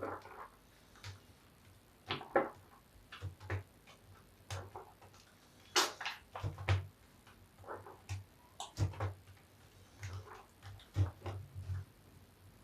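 Large bath washcloth lathered with soap scraps being squeezed and kneaded by hand, giving irregular short wet squelches and foam crackles, some with a soft low thump.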